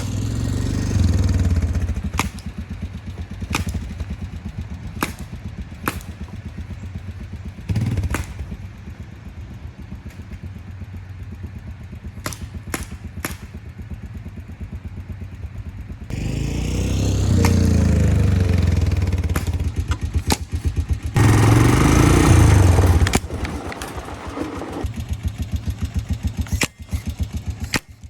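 Honda Recon TRX250 ATV's single-cylinder engine idling, with sharp single pops from a remote-triggered paintball gun at irregular intervals through the first half. Later the engine revs up twice, each time for a few seconds.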